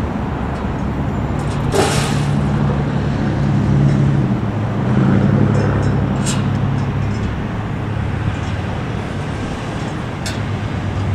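Steady rumble of road traffic, with a heavy vehicle's engine hum swelling a few seconds in and fading again; a short sharp hiss about two seconds in.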